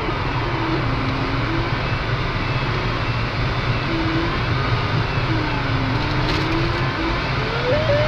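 Steady rush of air around a glider's cockpit in flight, with the variometer's audio tone sliding slowly down and back up in pitch as the glider circles in a thermal. The tone climbs again near the end, the sign of stronger lift.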